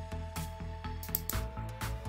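Background music with a steady beat over a repeating bass line.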